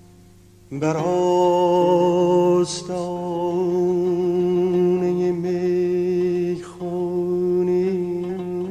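Male Persian classical singer in dastgah Shur, holding long sung notes with slight wavering ornaments and brief breaths between phrases. They start suddenly a little under a second in, as a plucked oud note dies away.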